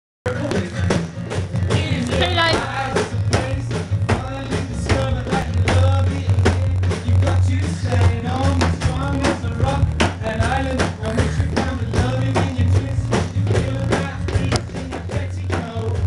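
Music: a song with a singing voice over a steady drum beat and bass.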